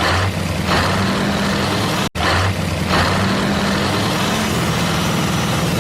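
A truck's diesel engine running steadily at idle, with several short hisses of air like an air brake's. The sound cuts out for an instant about two seconds in.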